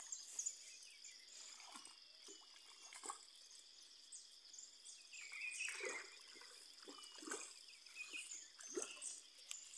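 Faint riverbank ambience: a steady high-pitched insect drone with scattered short bird chirps and light trickling water.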